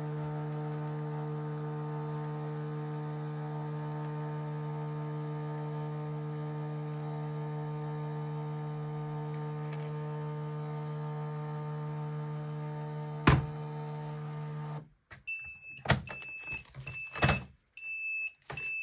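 MHT-P8008 thermal tattoo stencil printer's feed motor running with a steady hum while it prints. There is a sharp click just after 13 s, and the motor stops near 15 s. A run of short high beeps, about two a second, follows.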